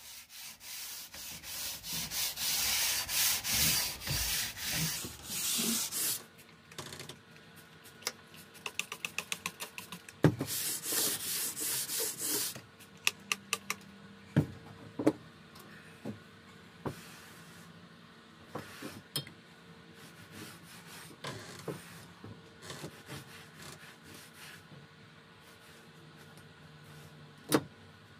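A sanding block scrubbed by hand back and forth along a rusty, pitted steel crosscut saw blade, taking off the rust. The scrubbing is loud for the first six seconds and again from about ten to twelve seconds. Between the two a quick run of clicks is heard, and after them come scattered quieter taps and knocks, with one sharp knock near the end.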